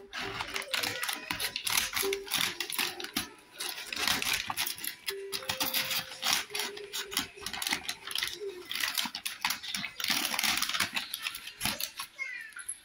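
Brown paper mailer bag crinkling and rustling as it is handled, a dense run of crackles and clicks.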